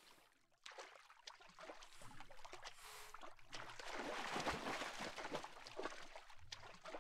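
Water splashing and lapping as boys swim, with irregular splashes that grow louder through the middle.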